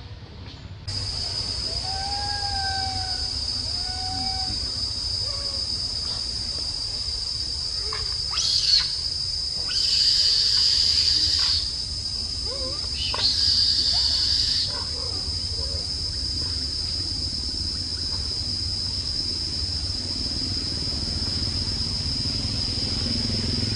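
Steady high-pitched insect chorus buzzing in the forest, swelling louder in a few surges around the middle. A few short squeaky calls sound in the first few seconds.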